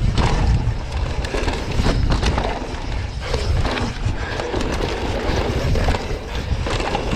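A Pivot Firebird enduro mountain bike descending a rough dirt trail at speed: tyres crunching over dirt and loose rock, with constant rattling and knocking from the chain and suspension over bumps. Wind buffets the camera microphone as a heavy, uneven rumble underneath.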